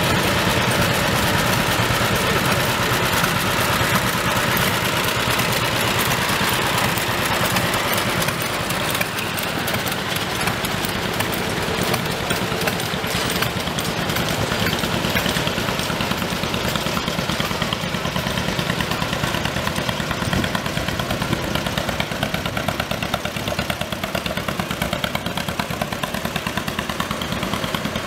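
Antique John Deere two-cylinder tractor engine running steadily with an even pulsing beat as the tractor drives slowly past.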